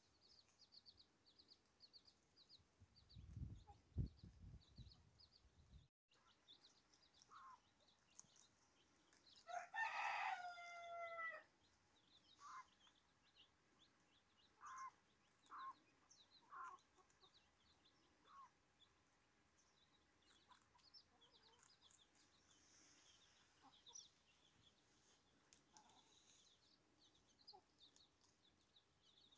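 Chicken yard: chicks peeping in quick, high, thin notes throughout, and a rooster crowing once for about two seconds a third of the way in, followed by a few short single hen clucks. A brief low rumble near the start, the loudest moment, is wind or handling on the microphone.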